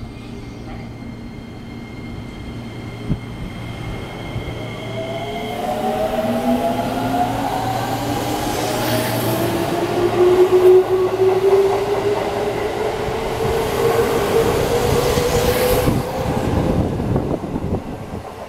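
JR 205 series 5000 electric commuter train pulling out of the station. Its inverter-driven traction motors whine in several tones that rise steadily in pitch as it accelerates, over growing wheel and rail noise that is loudest as the cars run past.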